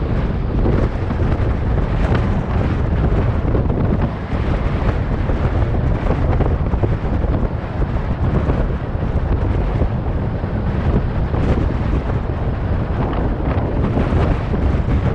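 Wind buffeting the microphone: a loud, unsteady rumble that rises and falls with the gusts.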